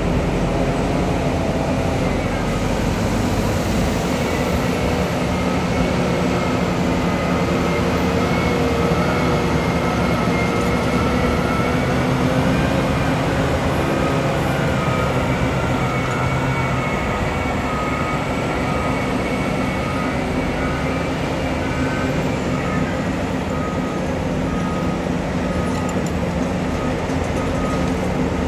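Heavy mining machinery, a large excavator and haul trucks, running steadily, with a whine that rises and falls gently in pitch. A reversing alarm beeps at an even pace in the later part.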